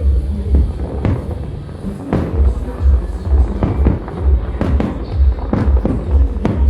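Aerial fireworks bursting in a rapid, irregular series of bangs over loud music with a heavy, steady bass beat.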